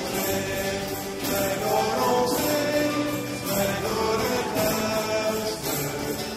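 Church music group performing a hymn: voices singing the refrain over a steady instrumental accompaniment.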